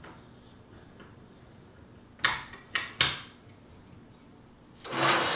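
Three sharp plastic clicks within about a second, as stiff plastic diffuser panels are pressed onto the indexing pins of a plastic instrument-cluster housing.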